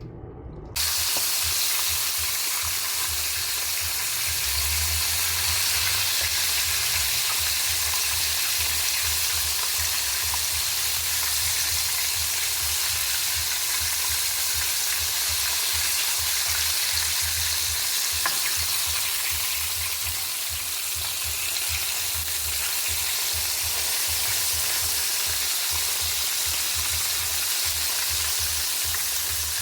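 Food frying in hot oil in a pan: a steady sizzle that starts suddenly just under a second in and carries on without a break.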